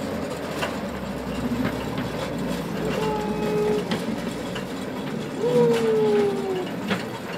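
A 1:8 scale ride-on model locomotive runs along its garden track, with a steady rumble of wheels on rail and a few clicks over the rail joints. A whistle-like tone sounds twice, the second time sliding down in pitch.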